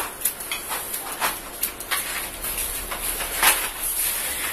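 Hairdressing scissors snipping through the ends of long hair in a series of sharp, irregularly spaced snips.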